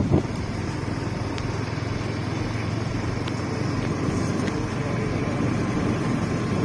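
Steady wind noise on the microphone over an even low hum, as from moving along outdoors.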